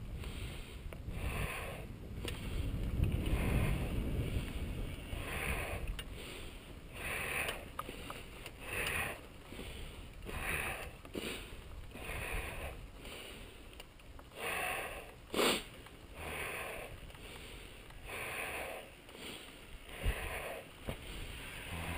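A mountain-bike rider breathing hard, about one noisy breath every second or so, over a low wind rumble on the camera microphone.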